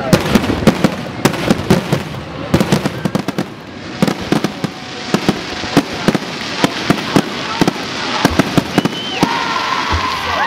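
Aerial fireworks going off in a dense, rapid string of sharp bangs and crackles, several reports a second. Near the end, a held high tone rises over the bangs.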